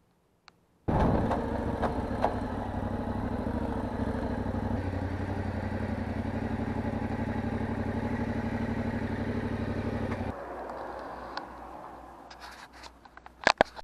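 Yamaha Ténéré 700's parallel-twin engine running steadily at low speed, cutting in abruptly about a second in. About ten seconds in the engine shuts off, and a few clicks and clunks follow near the end.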